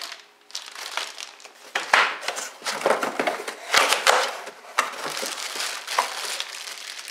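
Clear plastic packaging bags crinkling in irregular bursts as a plastic-wrapped keyboard and power supply are handled.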